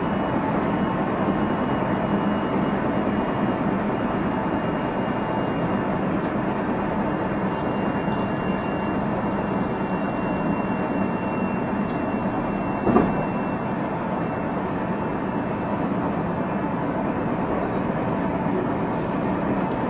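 JR Central 373 series electric train running at speed, heard from inside the car: steady rolling and running noise with a faint high whine. A single sharp clunk comes about 13 seconds in.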